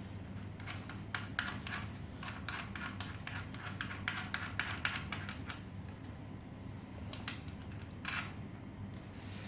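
A quick run of small clicks and scratches from hands working on metal and plastic scooter parts during disassembly. It stops for a moment, then comes a couple more clicks and a short scrape near the end.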